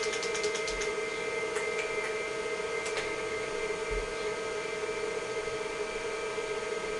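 IBM PC XT running: a steady hum and whine from the power-supply fan and the spinning MFM hard drive, with a few scattered clicks.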